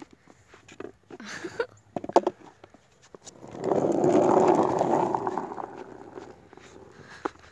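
Skateboard wheels rolling over rough asphalt: a rolling noise that builds about three and a half seconds in as the board passes close, then fades over the next couple of seconds as it rolls away. Before it, a few short clicks and knocks.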